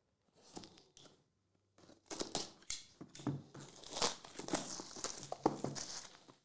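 Plastic shrink wrap being torn off a cardboard trading-card box and crumpled, a few crackles at first, then dense crinkling from about two seconds in.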